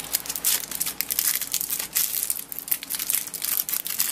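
Plastic wrapping of a candy cheese snack crinkling as it is handled and opened by hand, a dense run of crackles.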